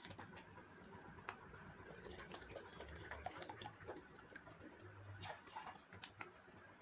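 Faint, scattered clicks and light taps of a plastic measuring cup being handled and emptied into a steel pot.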